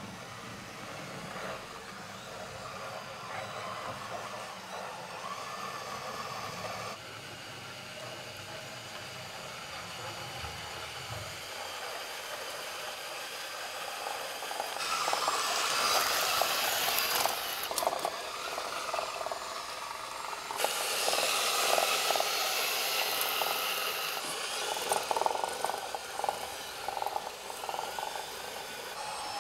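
A 1/16-scale RC John Deere 9620RX tracked tractor running and driving, its drive and tracks making a steady mechanical noise. There are two louder, hissier stretches about halfway through and again about two-thirds of the way in.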